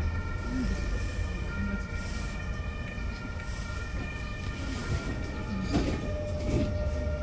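Frankfurt R-type low-floor tram running, heard from inside the car: a low rumble with a steady whine of several pitched tones over it. A single knock comes near the end, and then a new steady lower tone sets in.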